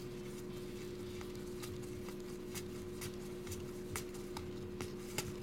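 Trading cards being handled and flipped through: light, irregular clicks and snaps of card stock, over a steady low hum.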